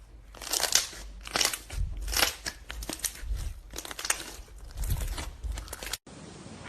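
Slime being squeezed and worked by hand, giving dense crackling and crunching pops in repeated clusters. It cuts off suddenly about six seconds in.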